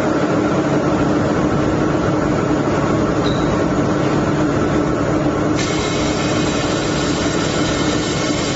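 Automatic fiber laser welding machine running: a steady machine hum with a constant drone, joined about two-thirds of the way through by a high hiss carrying thin whining tones.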